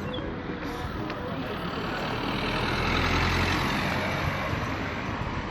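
A motor vehicle driving past close by, its engine and tyre noise swelling to a peak about three seconds in and then fading.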